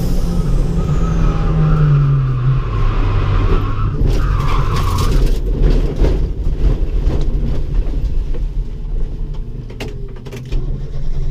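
Ford Ka track car's engine running, its pitch falling over the first few seconds as the car slows, with tyres squealing up to about five seconds in; after that the engine runs lower and steadier, dipping in loudness near the end.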